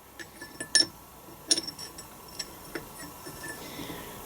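Irregular light metallic clinks and taps, two of them sharper and louder with a brief ring, from steel tools working on the LT230 transfer box casing while a bearing race is being drifted out.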